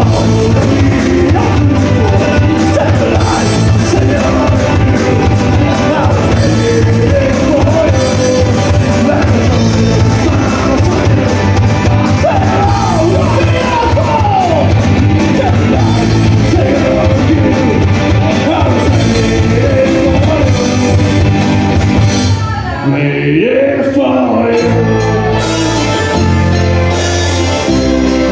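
Live folk-rock band playing: drum kit, bass guitar, electric guitar and violin, with singing. About 22 seconds in, the drums and bass drop out for a couple of seconds, then the full band comes back in.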